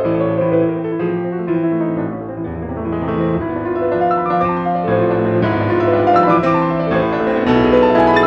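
Solo classical piano on a concert grand: a dense passage of many quick notes across the keyboard, dipping softer about two seconds in and then building louder toward the end.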